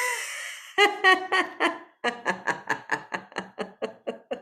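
Laughter-yoga lion laugh: a person laughing hard with the tongue stuck out. A drawn-out voiced exhale fades out, then come quick runs of short 'ha' bursts, about five a second, with a brief pause around two seconds in and fading toward the end.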